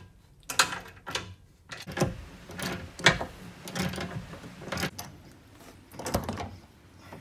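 Hand ratchet wrench clicking as it tightens bolts through a star-head (Torx) bit, in short runs of clicks about once a second.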